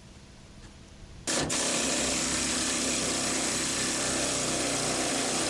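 Handheld air-powered tool running steadily at full speed. It starts abruptly about a second in.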